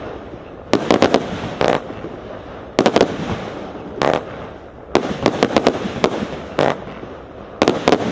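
A 224-shot compound firework cake firing: sharp bangs in quick clusters of two to five, a cluster every second or two, with a softer hiss between them.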